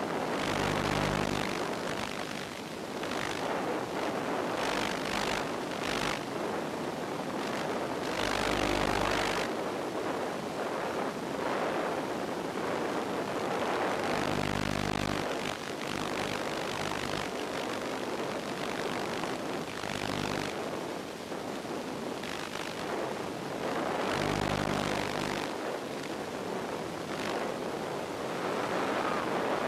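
RC model airplane in flight: a steady rush of propeller and airflow noise. A low hum swells for a second or so a few times and fades again.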